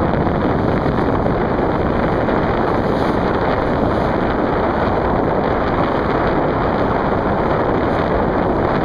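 Strong wind blowing across the microphone, a loud, steady rushing noise with no break.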